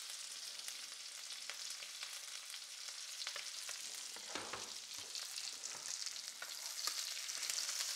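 Seafood risotto sizzling in a pan on the heat while it is stirred, the spoon clicking and scraping against the pan now and then over a steady hiss.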